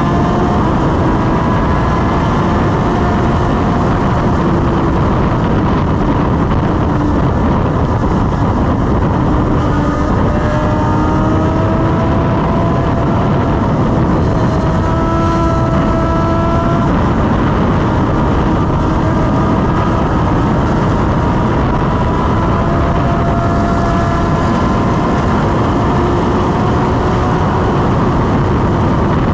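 BMW S1000RR's inline-four engine running at highway cruising speed, mostly buried under a steady rush of wind on the microphone; its faint hum drifts slowly up and down in pitch with the throttle.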